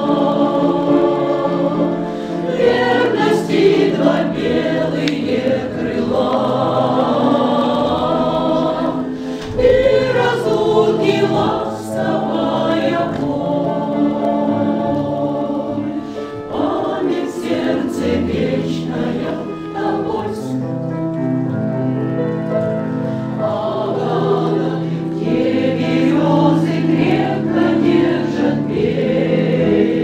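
Mixed choir of women's and men's voices singing a song together in sustained chords.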